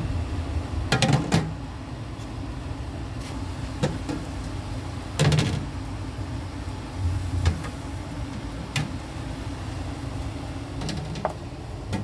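Kitchen work: a steady low hum under scattered knocks and clatter of cookware and utensils. The loudest clatters come about a second in and again about five seconds in.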